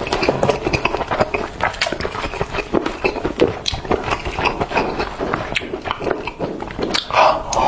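Close-miked wet chewing and lip-smacking of someone eating braised chicken legs: a dense, irregular run of small smacks and clicks.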